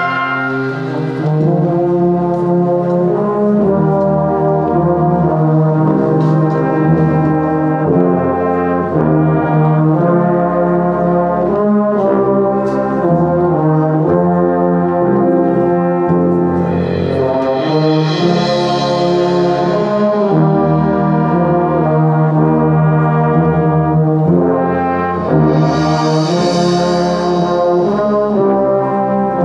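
Brass band of trumpets, trombones, euphoniums, tubas and a sousaphone, joined by flutes and clarinets, playing a hymn in full sustained chords. A high, rushing swell rises and fades twice, around the middle and again near the end.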